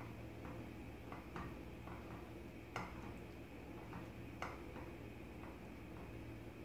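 Spatula knocking and scraping against a nonstick pan as rice flour and hot water are stirred into idiyappam dough: faint irregular taps, two sharper ones about three and four and a half seconds in, over a steady low hum.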